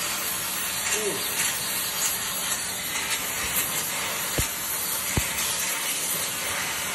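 Oxy-fuel gas torch hissing steadily as its flame heats the trailer's bent steel trailing axle. Two sharp metal clinks come through the hiss past the middle.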